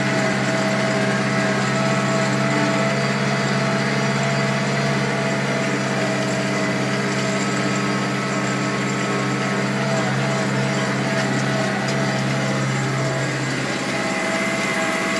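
New Holland TD85D tractor's diesel engine running steadily at about 2000 rpm under load, pulling a disc harrow through the soil, heard from the driver's seat.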